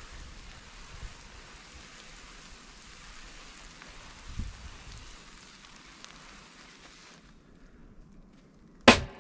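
Water hissing steadily from the jets of a water-fed pole brush as it scrubs a metal road sign, cutting off suddenly about seven seconds in. A single sharp knock near the end.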